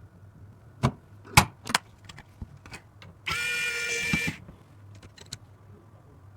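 Hands handling computer parts during a PC build: a few sharp clicks and knocks, then about a second of loud scraping with a faint whine in it about three seconds in, followed by scattered light clicks over a low hum.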